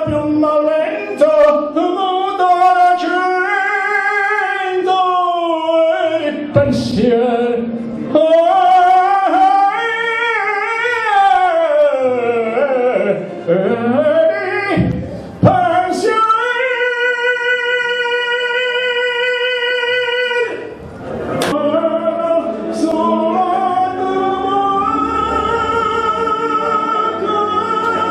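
A man singing solo into a handheld microphone, with long held notes and wide slides in pitch. A little past the middle he holds one note steady for about four seconds.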